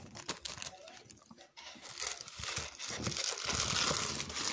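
Clear polyethylene (PE-LD) plastic bag crinkling as hands handle and pull it open. Light, scattered crackles become louder and denser from about two seconds in.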